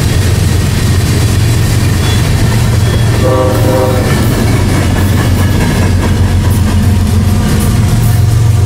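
Union Pacific diesel locomotives working under power as they approach and pass, a loud steady low engine drone, mixed with the wheel and rail noise of a freight train's tank cars rolling by on the adjacent track. The locomotive horn gives one short blast a little over three seconds in.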